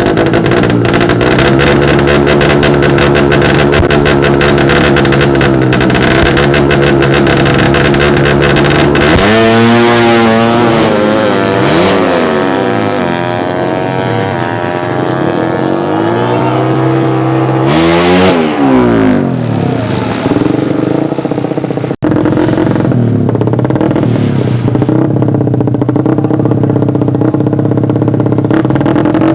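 Drag-bike motorcycle engines of the stock Suzuki Satria FU class revving loudly. About ten seconds in, and again near eighteen seconds, a bike accelerates hard and passes, its pitch climbing and then dropping. After an abrupt cut the engines run and rev steadily again.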